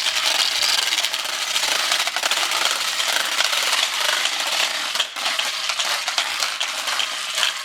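Wooden Easter ratchets and clappers (Ratschen, Klappern) being worked, a dense, continuous wooden clatter that stops abruptly near the end. It is the noise that stands in for church bells between Good Friday and Easter Sunday.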